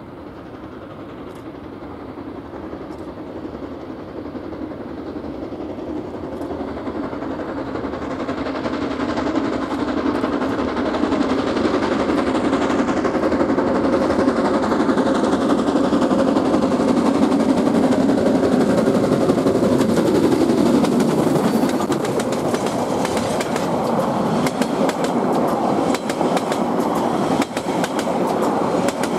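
Steam locomotive Jb 1236 hauling a passenger train toward the listener. Its sound grows steadily louder until it passes close about twenty seconds in, dropping in pitch as it goes by. The carriages then roll past with a fast clickety-clack of wheels over the rail joints.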